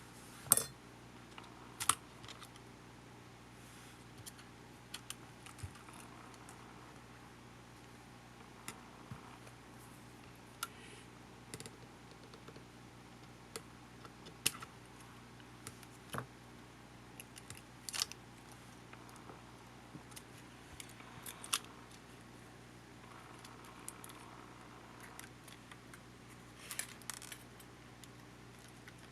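Scattered small clicks and taps of tools and small parts being handled while taking apart a Panasonic HA-WA10 camcorder, irregular and spaced a second or more apart, over a faint steady hum.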